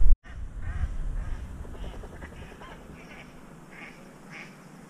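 Waterbirds calling from the lakeshore: a series of about eight short calls over a few seconds, fading toward the end, with a low rumble of wind or water in the first second or two.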